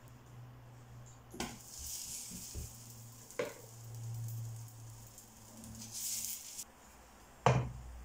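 Stuffed aloo paratha sizzling as it is laid into a hot, lightly oiled nonstick frying pan, with a second short sizzle later on. A few sharp knocks of a spoon and dishes, the loudest near the end.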